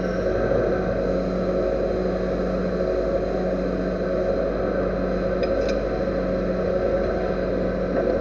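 Machine tool running steadily in a workshop, an even, constant hum with a steady pitch and no cutting or impacts.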